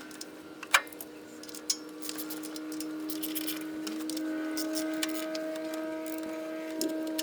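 Hand tools clinking on metal while a carburetor is unbolted, with a few sharp clicks in the first two seconds. Under them runs a steady, held humming tone that shifts up in pitch about four seconds in.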